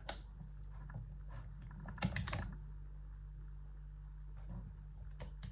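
Small sharp clicks and taps of lock picks and a wafer padlock being handled, with a quick cluster of clicks about two seconds in, over a steady low hum.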